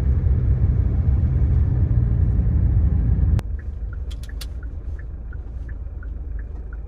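Car interior road and engine rumble while driving. About halfway through it cuts to a quieter, steady engine hum with an even, light ticking about three times a second.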